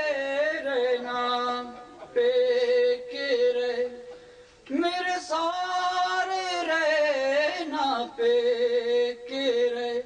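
A lone male voice singing a Punjabi noha, a Shia lament, into a microphone: long held notes with melodic turns, in phrases broken by short pauses for breath.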